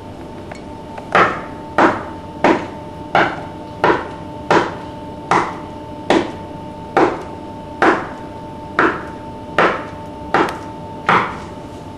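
Fourteen knuckle knocks on a wall, evenly paced at roughly one every three-quarters of a second and spacing out a little toward the end, over a faint steady hum.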